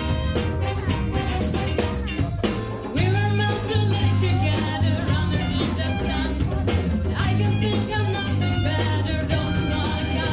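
Big band music: a horn section playing over bass and drum kit, with a sliding pitch figure about three seconds in.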